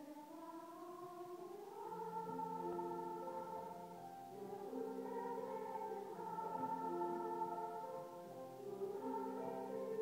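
Music of slow, sustained chords with a choir-like sound, fading in and swelling over the first couple of seconds.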